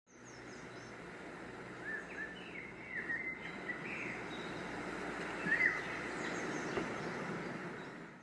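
Outdoor ambience: a steady rushing background with small birds chirping here and there, a few short chirps at a time. It fades in at the start and fades out near the end.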